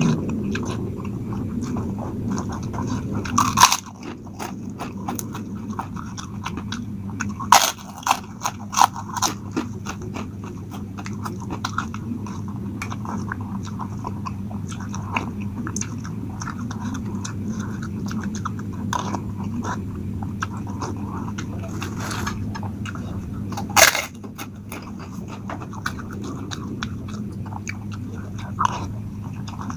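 Close-miked eating of instant noodles: chewing and slurping, with many short sharp clicks and crunches, the loudest clusters a few seconds in, around 8 seconds and around 24 seconds, over a steady low hum.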